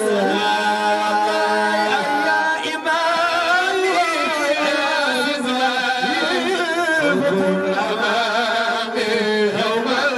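Men chanting a Sufi devotional song into microphones, several voices singing together in a melody that wavers and slides.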